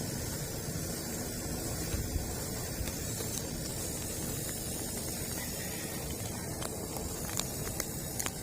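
Crickets in a tank chirping together, blending into a steady high hiss, with a few faint ticks near the end.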